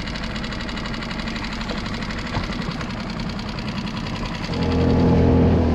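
Skiff's outboard motor idling steadily with a fast, even knocking beat. About four and a half seconds in, a louder, deeper engine sound takes over.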